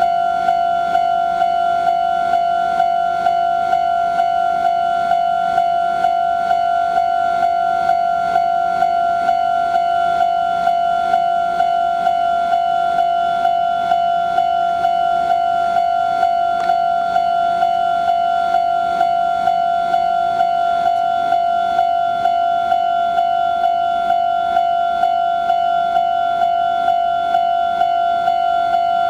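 Japanese level-crossing warning bell ringing steadily: the same electronic clang repeated at a fast, even rate. A faint low hum underneath stops about two-thirds of the way through.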